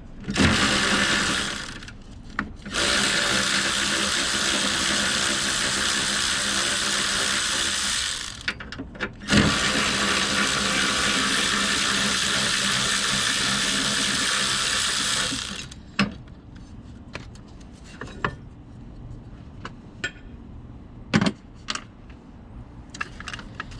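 Cordless power tool running in three steady spells, one short and two of several seconds, spinning out the 10 mm bracket bolts above the starter. A few light clicks and knocks of tools and metal parts follow.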